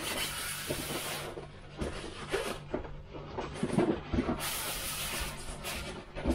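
Packaging rustling and crinkling in irregular bursts as the RC boat's battery and charger are dug out of their box, over a faint steady low hum.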